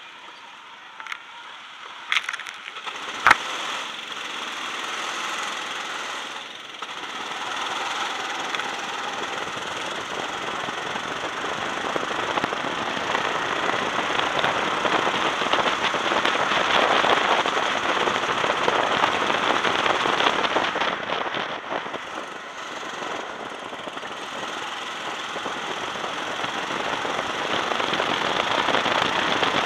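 A few sharp knocks in the first seconds, the loudest about three seconds in. Then the go-kart's engine runs with a rough, crackly rush of wind noise on the onboard microphone as the kart drives onto the track. It dips briefly a little past the two-thirds mark and rises again.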